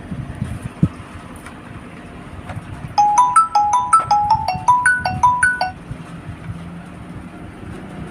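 A short electronic ringtone-like melody of about a dozen quick beeping notes, starting about three seconds in and lasting under three seconds, over a steady low rumble.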